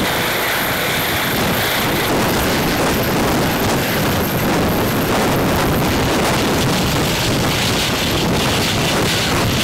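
Eurocopter EC135 helicopter hovering low as it comes in to land: a loud, steady rush of rotor wash buffeting the microphone, with a thin high turbine whine over it.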